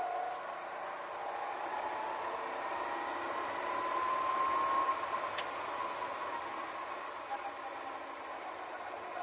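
Go-kart engine pulling out of a slow section, its pitch rising as the kart picks up speed, under a steady hiss of wind and tyre noise. A single sharp click about five seconds in.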